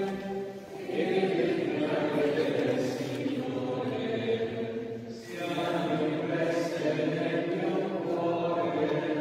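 Group of voices singing a chant in long held phrases, with short breaks about a second in and about five seconds in.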